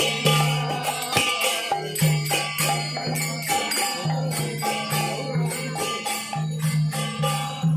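Kirtan music: small hand cymbals (kartals) clashing in a steady rhythm with a two-headed mridanga drum, over a held low tone that comes and goes in phrases of a second or two.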